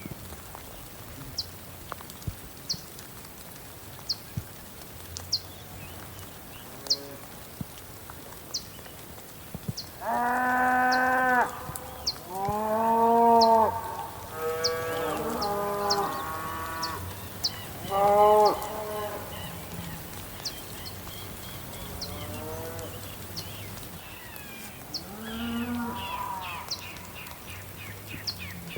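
Cows mooing, about six long calls, with two animals overlapping at one point, starting about a third of the way in. Under them a bird gives a short high chirp every second or so, and there is a steady hiss of rain.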